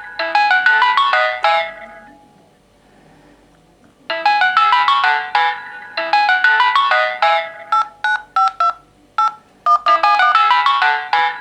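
Several smartphones' ringtones and alarm tones sounding together: phrases of quick, bright electronic notes that pause about two seconds in, then resume. Near the middle, a short run of evenly repeated beeps on one pitch cuts in.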